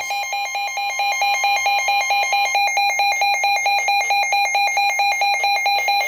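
Midland NOAA weather alert radio sounding its warning alarm for a severe thunderstorm warning: a loud, rapid, evenly pulsing electronic beep, about eight beeps a second.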